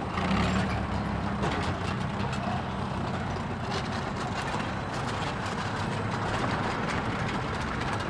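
Infantry fighting vehicle's engine running with a steady low drone, its note dropping a little about a second and a half in, with light rattling over it.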